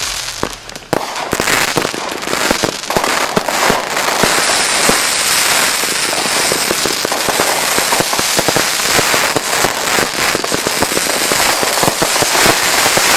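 Dead Presidents 196-shot aerial finale set (four consumer firework cakes) firing a rapid barrage of shots and bursting breaks with crackle. It builds from scattered reports to a dense, continuous volley about a second in.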